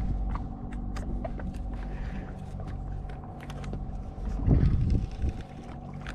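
Boat engine running steadily, with scattered light clicks and a louder low rush about four and a half seconds in.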